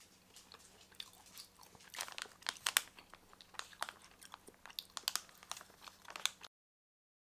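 Plastic snack pouch being handled, crinkling in a quick irregular run of sharp crackles that cuts off abruptly near the end.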